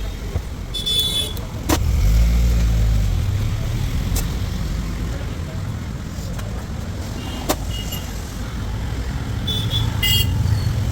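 Street traffic: a steady low engine rumble that swells as a vehicle passes about two seconds in, short high horn toots near the start and end, and a few sharp knocks.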